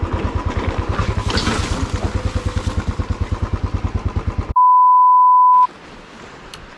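Royal Enfield Classic 350 single-cylinder engine running with an even pulse of several beats a second, cut off suddenly about four and a half seconds in by a loud, steady electronic beep about a second long, followed by faint hiss.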